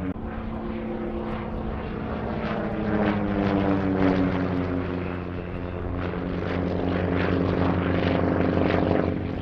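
Percival Provost's Alvis Leonides nine-cylinder radial engine and propeller during aerobatics overhead. The engine note slides down in pitch a few seconds in, then swells louder again near the end.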